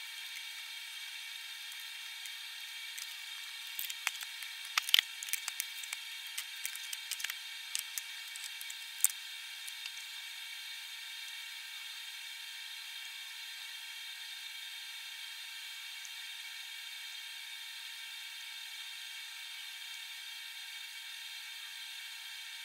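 Pot of curry broth and meat simmering on a stovetop: a steady hiss with a cluster of small pops and clicks between about four and ten seconds in.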